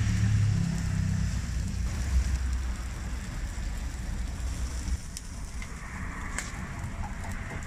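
Tacos and a quesabirria sizzling as they fry in barbacoa fat on a flat steel griddle. A low rumble runs under it for about the first five seconds, and a few clicks of a metal spatula on the griddle come near the end.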